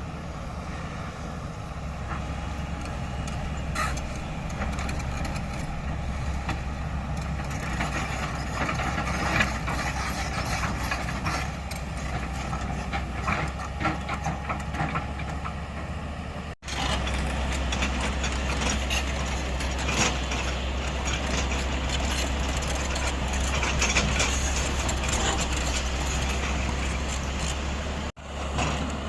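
Heavy diesel machinery running steadily: a JCB 3DX backhoe loader working as it loads mud, with scattered knocks. The sound breaks off abruptly and resumes twice, once about halfway through and once near the end.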